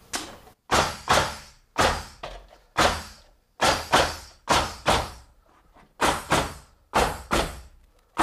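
Pneumatic nail gun firing nails through 2x4s into floor joists: about a dozen sharp shots, many in quick pairs.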